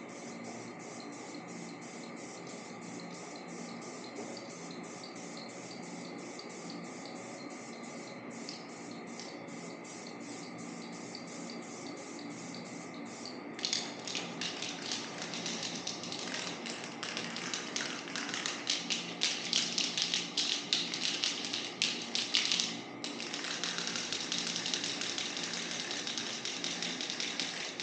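Aerosol spray-paint can being shaken, its mixing ball clicking rapidly and evenly, then paint spraying in a loud hiss that starts suddenly about halfway through. The hiss is uneven at first, stops briefly, then sprays steadily.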